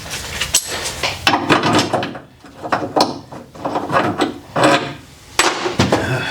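Irregular knocks, clatter and scraping of parts and tools being handled at a workbench, in uneven bursts with short pauses between them.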